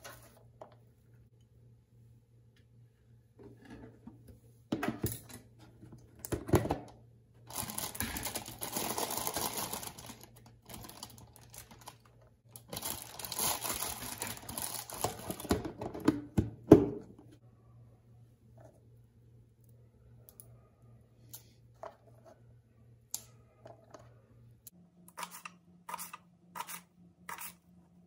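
A plastic bag crinkling and rustling inside a plastic box as green chillies are taken out, in two long spells. Near the end, a kitchen knife chops green chillies on a cutting board in quick, even strokes, about three a second.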